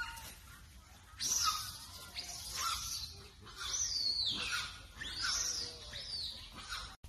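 Macaque screaming: four or five loud, high-pitched arching cries in quick succession over several seconds.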